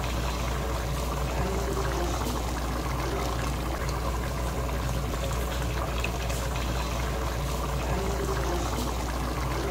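A pot of tripe and bean stew boiling on the stove, a steady bubbling over a low hum.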